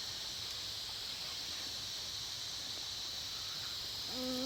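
Steady chorus of insects chirring, a high even hiss. A short voice sound cuts in near the end.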